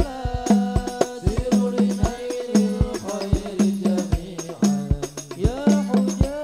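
Sholawat ensemble performing: male voices singing a devotional melody together over frame drums (rebana/terbang) beating an even rhythm, with deep drum strokes and jingling percussion.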